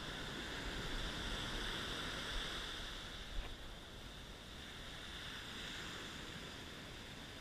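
Surf washing up a sandy beach, a steady wash of noise, with wind rumbling on the microphone and a single short click a little over three seconds in.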